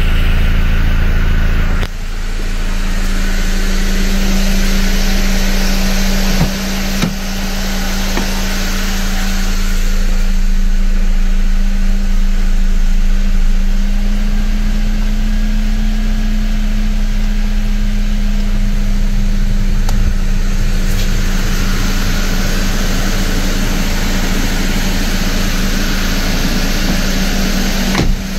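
Mercedes-Benz M271 supercharged four-cylinder petrol engine idling steadily on a freshly fitted timing chain kit, heard at first close to the exhaust tailpipes. The idle rises a little about halfway through and drops back a few seconds later.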